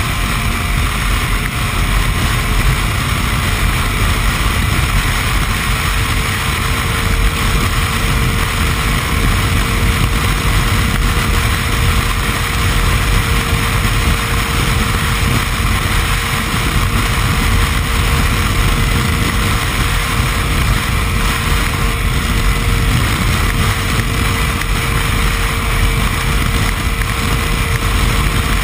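Yamaha snowmobile running steadily at cruising speed: the engine and track make an even drone, mixed with wind noise.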